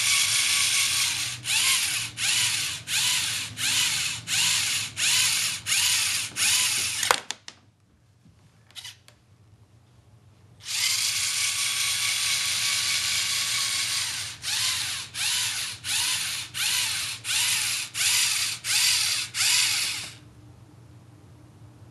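Lego Mindstorms robot's electric motors and plastic gear train running with a high whir, pulsing about twice a second. It stops with a sharp click about seven seconds in, starts again about eleven seconds in, and cuts off a little before the end.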